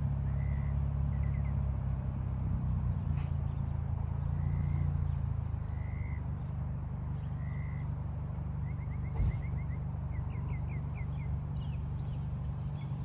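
A 1996 Acura Integra GSR's 1.8-litre four-cylinder engine running at a steady idle through a newly fitted aftermarket catback exhaust, giving a low, even drone. Birds chirp over it, with short repeated calls and a couple of quick trills.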